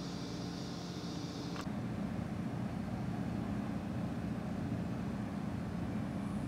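Steady low background rumble. A high hiss stops abruptly with a click about a second and a half in.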